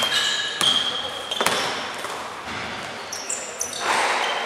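A basketball dribbled on a gym floor, with three sharp bounces in the first second and a half. Sneakers squeak on the court, and there is a short burst of noise near the end.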